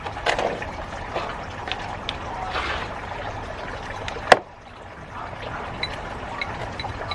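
Handling work while repotting plants: steady gritty rustling and scraping with scattered small clicks, and one sharp knock a little over four seconds in.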